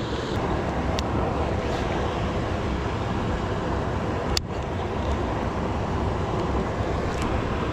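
Steady rush of water pouring over a small spillway dam, an even, unbroken noise with a deep low rumble. There is a brief click about a second in and another a little past four seconds.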